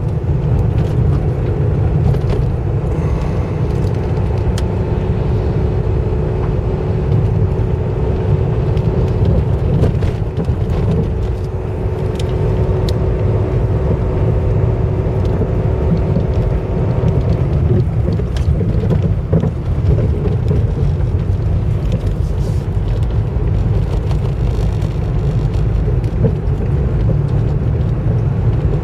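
Car driving, heard from inside the cabin: a steady low rumble of engine and tyres on a wet road, with a faint steady hum that drops away a little past halfway through.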